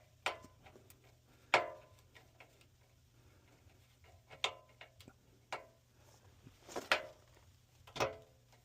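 Hands and tools working an HVAC blower motor's run capacitor loose from its mount: a series of separate short clicks and knocks, about six louder ones spread over several seconds.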